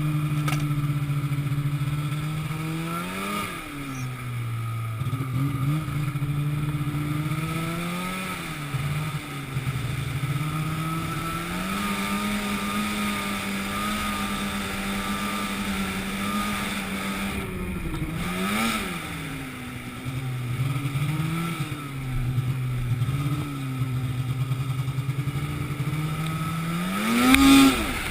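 An engine running, its pitch rising and falling repeatedly as it revs up and settles back, with a louder swell near the end.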